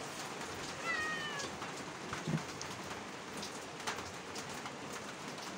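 A cat meowing once: a short, high mew about a second in, over a steady background hiss.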